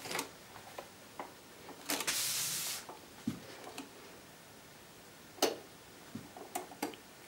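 Faint, scattered mechanical clicks and a short rush of noise about two seconds in from a Technics turntable, its tonearm off the record and the record stamp still spinning. No music is playing.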